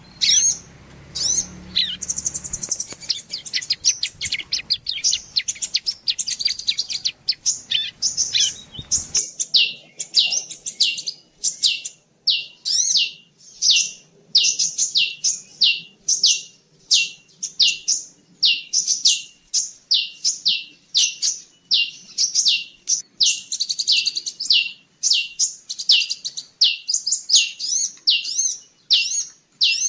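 Bird-lure recording of small songbirds, sunbird and bar-winged prinia (ciblek), calling. For about the first nine seconds it is a busy jumble of high chirps over a low rumble. After that, a sharp high call note repeats about twice a second.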